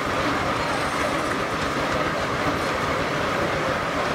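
A steam-powered sawmill running: a steady mechanical clatter over a continuous rushing noise.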